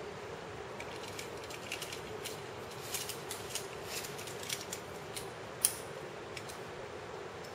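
Irregular light metallic clicks and clinks of climbing gear, carabiners and quickdraws knocking together, with one sharper click about three-quarters of the way through, over a steady low hiss.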